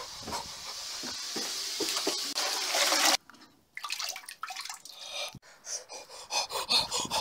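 Toilet flushing: a rush of water that grows louder for about three seconds, then cuts off abruptly. Scattered short clicks and rustles follow.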